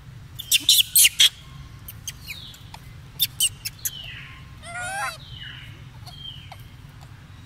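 Golden snub-nosed monkey giving sharp, high-pitched squeaks in two quick clusters, about a second in and again around three seconds, with a short wavering call about five seconds in and a few brief falling whistly notes between.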